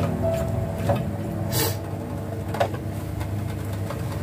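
Steel ladle stirring chunks of potato and aubergine in an aluminium pot, with a few metal-on-metal scrapes and knocks, the sharpest about a second and a half in.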